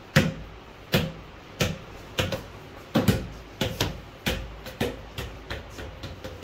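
A reflective football being tapped along a hard floor, making a run of dull thuds about two a second, unevenly spaced and sometimes in quick pairs.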